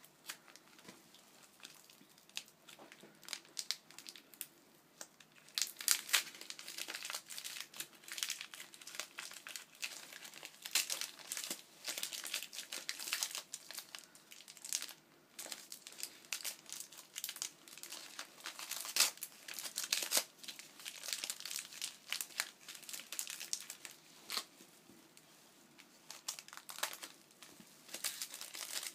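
Paper or plastic packaging crinkled and rustled by hand, in irregular crackling bouts with short pauses, sparse for the first few seconds and then busier, with some tearing.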